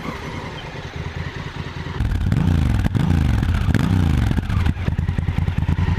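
Honda Africa Twin's 1000 cc parallel-twin engine idling, heard close to the exhaust from about two seconds in, then revved twice, rising and falling in pitch each time.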